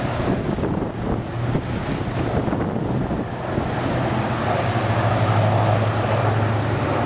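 Strong wind buffeting the microphone over the low, steady hum of a heavy machine's engine, likely the 3400 hp Liebherr P996 dredge. The engine hum grows a little louder about four seconds in.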